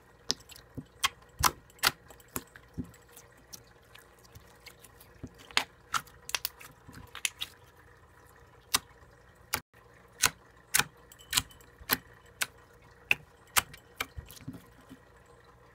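Slime being squeezed and poked by fingers, making an irregular run of short, sharp wet clicks and pops, about one or two a second.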